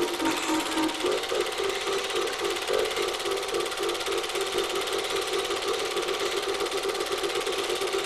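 Super-8 film projector running: a steady mechanical noise from the projector's film transport, recorded onto the film's soundtrack.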